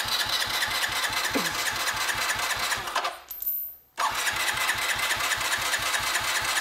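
A Honda CT110 Postie Bike's single-cylinder engine turning over on its electric starter, a steady rhythmic churn of about nine pulses a second, cranked to push oil up the turbo's oil-feed line. It drops away about three seconds in and starts again about a second later.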